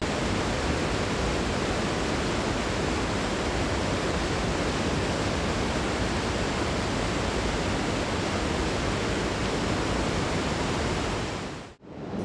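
Steady rushing of water churning in a large waterworks basin. It dips out briefly near the end.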